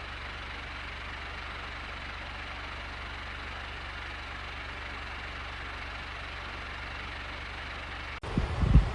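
Comfort Zone 9-inch cradle fan with aluminum blades running steadily: a constant motor hum under rushing air. Near the end the sound changes abruptly to loud, irregular low thumps.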